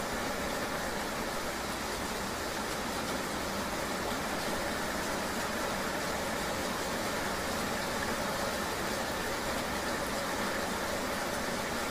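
Steady, unbroken rain ambience with the even hum of a vehicle riding through it, part of a looping relaxation soundscape.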